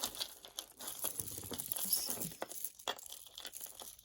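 Plastic packaging crinkling and rustling, with many small clicks and taps, as hands sort through and pull out pieces of jewelry.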